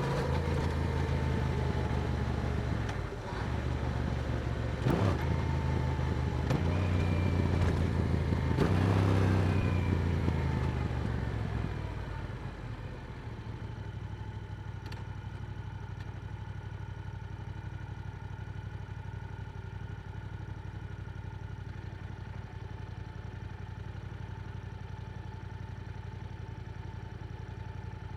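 Yamaha R7's parallel-twin engine through an Akrapovic exhaust, running under way with several steps in engine note, then dropping to a steady idle about twelve seconds in.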